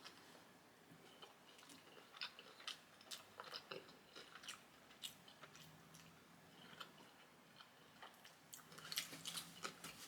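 Faint chewing and small crunches of someone eating, in clusters a few seconds in and again near the end.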